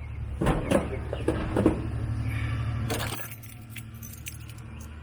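Clinks and rattles of keys and a locking gas cap being fitted to a fuel filler after refuelling, over a steady low hum that stops about three seconds in.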